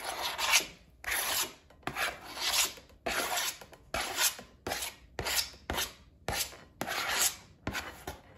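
Metal spoon scraping across a plastic cutting board, pushing sliced mango off into a bowl, in about a dozen quick repeated strokes.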